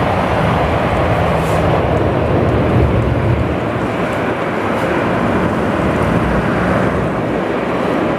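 Lockheed C-130HS Hercules' four Allison T56 turboprop engines running steadily as the aircraft taxis: a loud, even noise with a low hum beneath it.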